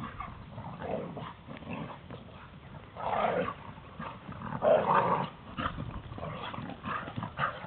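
Two female pit bulls play-fighting, growling at each other in rough bursts, the loudest about three seconds in and again about five seconds in.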